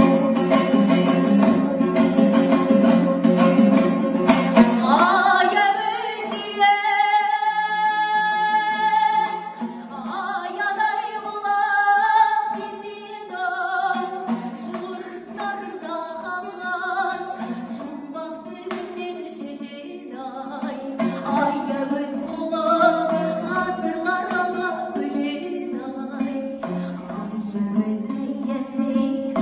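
A woman sings a Kazakh song, accompanying herself on a strummed two-stringed dombra. The dombra plays alone for about five seconds, then her voice slides up into a long held note and carries on in sung phrases over the strumming.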